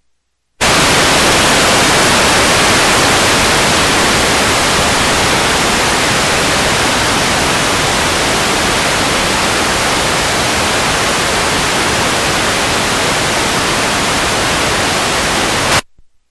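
Loud, steady static hiss of a video signal breaking up into snow. It starts abruptly just after the start and cuts off suddenly near the end.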